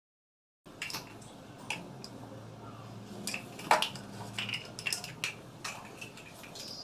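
Light clicks and taps of a plastic cup and utensils against a steel bowl while ragi flour is tipped in, with one sharper knock a little past halfway, over a low steady hum.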